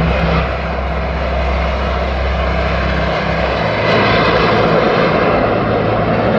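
BAE Hawk jets of the Red Arrows flying over, their jet engines making a steady rushing noise that grows a little louder about four seconds in.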